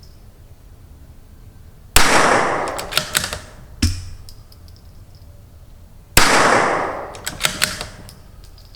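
Two shots from a CZ 457 bolt-action .22LR rifle, about four seconds apart. Each shot is followed by a run of metallic clicks as the bolt is worked to chamber the next round.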